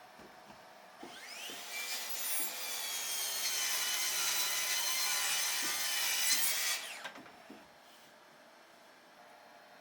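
Track saw spinning up with a rising whine about a second in, then cutting through wood for about five seconds. It winds down with a falling whine near the end.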